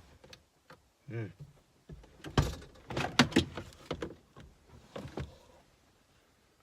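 A run of clicks, knocks and rustles from handling inside a truck cab, loudest about two and a half to three and a half seconds in, with a brief pitched sound about a second in.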